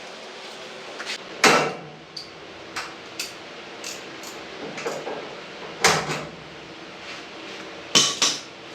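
Knocks and bangs from garage door repair work: three loud bangs spread through, with lighter clicks and taps between.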